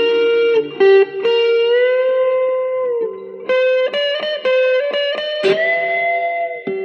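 Electric guitar played through a Joyo DC-15 practice modeling amp: a single-note lead solo of held notes with upward string bends, turning into a run of quicker, shorter notes about halfway through.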